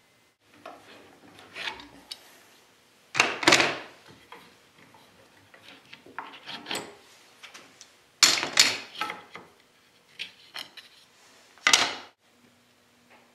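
Small wooden pieces and tools being handled on a workbench: a string of short scraping and rubbing noises, three of them louder than the rest.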